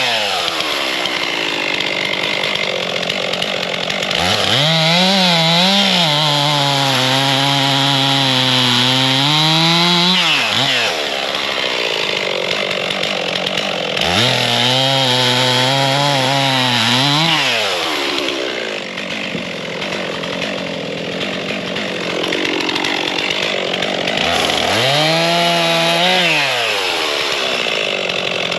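Stihl MS 362 two-stroke chainsaw bucking a poplar log into firewood rounds. The engine revs up and falls back three times, its pitch sagging under load between the higher-revving stretches.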